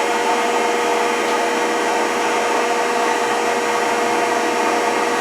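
Rockford 36-inch hydraulic planer's electric motor and hydraulic pump running steadily at idle, with a steady whine over the electrical hum of rotary phase converters, on its first run in 30 years.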